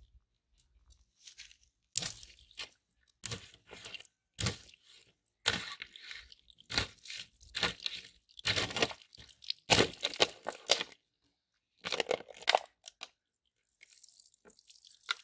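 Spring-steel sword blade cutting through water-filled plastic bottles: a string of short, separate bursts of crunching, tearing plastic, with water splashing out onto pavement near the end.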